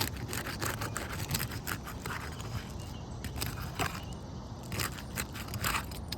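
Asphalt 3-tab roof shingles having their sealant strips broken loose with a pry tool: irregular crackling and scraping as the tar seal tears away.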